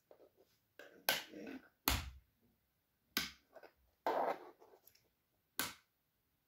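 Handling noise from an LED candle bulb in a handheld plastic lamp socket on a cord: about five sharp clicks and knocks, two of them followed by brief rustling.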